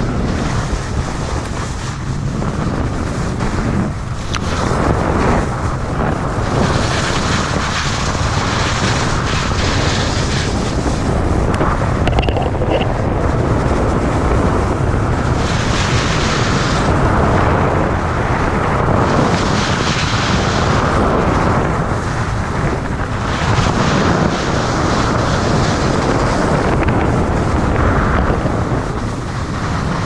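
Wind buffeting the microphone of a skier's action camera on a fast downhill run, with the hiss of skis on packed snow. The hiss swells and fades every few seconds as the skier turns.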